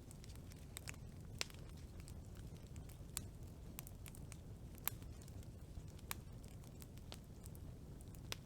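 Wood campfire burning: a low steady rumble of flame with scattered sharp crackles and pops, the loudest about a second and a half in, near five seconds, and right at the end.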